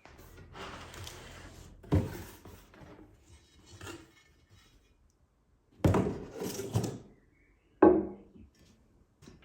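A cardboard parcel being handled and opened: rustling packaging, with a few hollow thuds as the box is set down and moved, the sharpest about two seconds in and again near the end.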